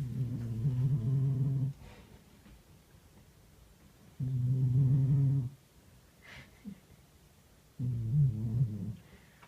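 A domestic cat snoring in its sleep: three low snores, each lasting a second or so, about four seconds apart.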